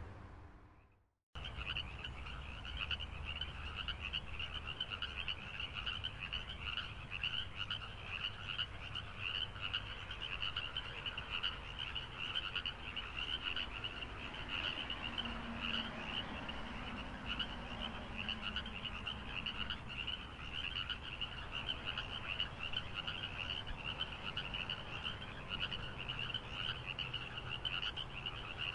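A dense chorus of many frogs calling at once, a steady, fast-pulsing trill. The sound cuts out briefly about a second in, then resumes.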